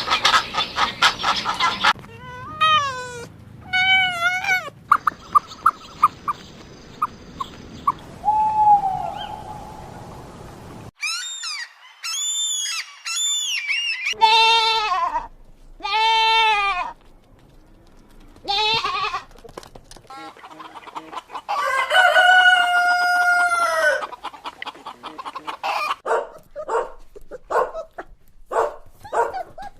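A series of different animal calls one after another, among them chickens clucking and a rooster crowing. The calls come in short bursts and longer arched cries, with a long, steady crow-like call near the middle and quick repeated pulses near the end.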